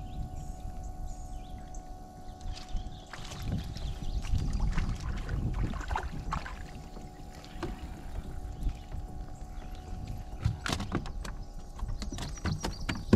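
Clicks and knocks of handling on a fishing kayak over a steady low rumble of water and wind, with a faint steady hum.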